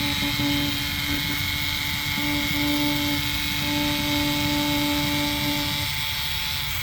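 Ryobi USB Lithium cordless screwdriver's motor running with no load, a steady electric whine. Its main tone drops out about six seconds in.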